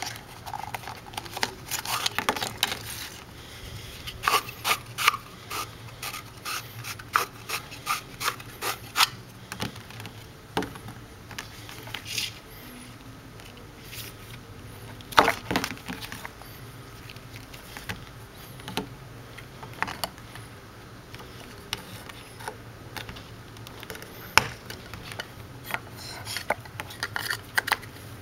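Hard plastic parts of a cord-lock clamp clicking, tapping and rubbing as they are handled, pulled apart and fitted over an extension cord's plug ends on a tabletop. The clicks come irregularly, in a busy run during the first third, with one sharp knock about halfway through.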